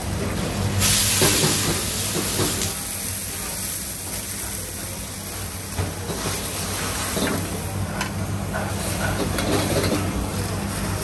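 Hawker stall cooking noise: a steady low mechanical hum, with a loud hiss starting about a second in and lasting about two seconds, and a few light clatters.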